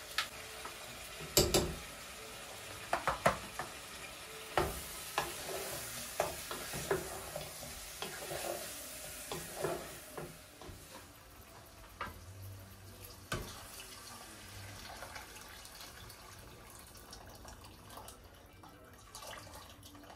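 Chopped celery and herbs sizzling as they are stirred in a hot steel pot, with a spoon knocking against the pot a dozen or so times, most loudly in the first few seconds. The sizzle dies down after about ten seconds, and near the end water is poured in from a kettle.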